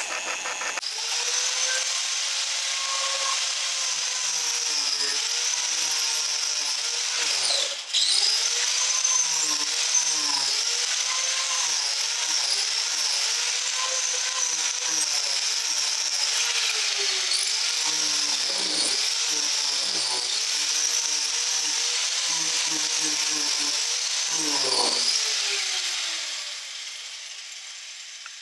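Angle grinder fitted with a tungsten carbide rasp disc carving into a bark-covered log. The motor gives a steady high whine with a rasping, grinding noise, and its pitch dips again and again as the disc is pressed into the wood. There is a brief break about eight seconds in, and the grinder winds down and fades near the end.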